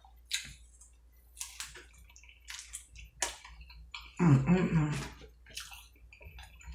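Close-up eating sounds from a crunchy hard-shell taco: scattered crisp crunches and wet chewing. A brief vocal sound comes about four seconds in.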